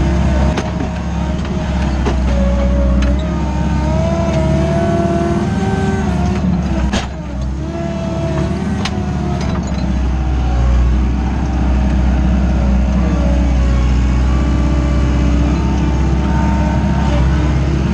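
Wacker Neuson 901s skid-steer loader's 50 kW diesel engine working under load, heard from inside the cab. A whine rises and falls in pitch as the machine pushes dirt, with a few sharp clunks.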